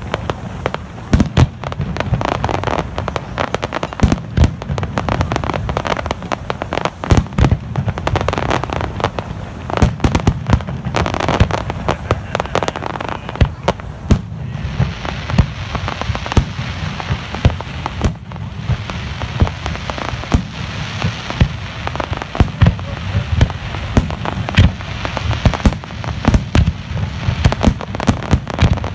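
Aerial fireworks shells bursting in quick, irregular succession: many sharp bangs, several a second at times, over a continuous low rumble of distant detonations.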